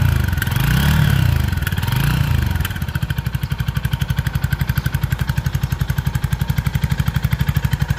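Mutt Razorback 250cc's air-cooled four-stroke single-cylinder engine being revved up and down in a few throttle blips, then settling about three seconds in to a steady idle with an even, pulsing beat.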